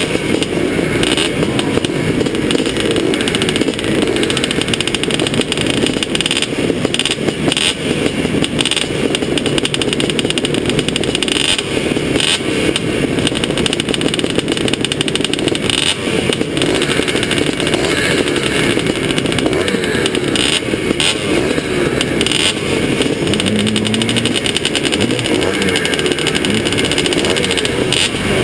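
Several vintage two-stroke motocross bikes, a 1981 Husqvarna 430 among them, running at idle on the starting line, with a short rev late on.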